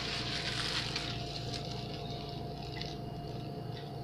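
Steady low appliance hum with a faint high tone, under light hissing and rustling that dies down after about a second.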